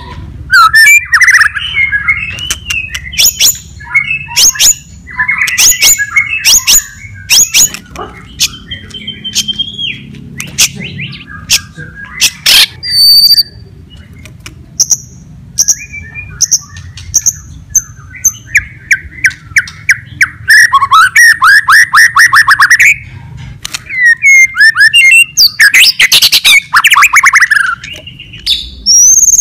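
White-rumped shama singing loudly and without a break: a varied song of sharp rapid rattling clicks, clear high whistled notes and fast buzzy trills.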